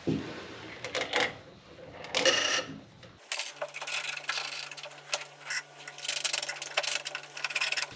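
Small metal clinks and rattles of bolts, washers and nuts being fitted by hand through the flange of a bronze rudder port, with hands rubbing on the fiberglass hull. About three seconds in the sound changes abruptly to quicker clicking over a faint steady hum.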